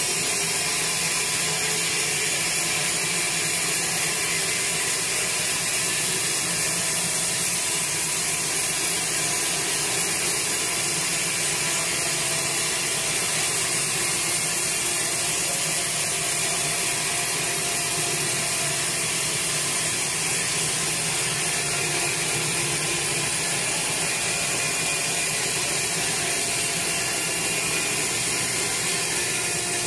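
Sawmill band saw cutting lengthwise through a large teak log: a loud, steady noise with a strong high hiss that runs without a break.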